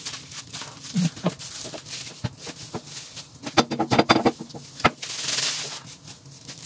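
Plastic bench scraper clicking and knocking against a silicone baking mat as sticky dough pieces are cut apart, in a quick cluster of taps a few seconds in and one sharp click as the scraper is set down. A soft rustle follows near the end.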